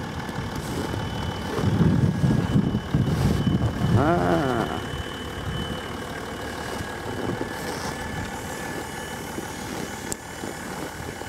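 Land Rover Discovery 3 engine running, louder for a few seconds near the start, then idling steadily.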